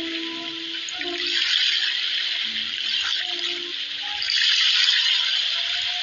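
A loud hiss like rushing water that swells and fades every second or two, with a few soft held music notes underneath in the first half.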